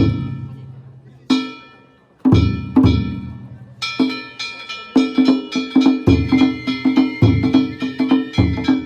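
Danjiri festival percussion (narimono): a taiko drum and ringing hand gongs struck together. Single strokes about a second apart at first, then from about four seconds in a fast, steady beat of several strokes a second.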